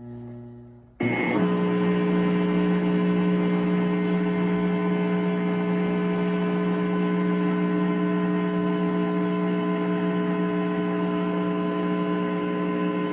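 An altered Emergency Alert System attention tone. It starts abruptly about a second in as a loud, steady low drone of several held pitches, and it holds unchanged.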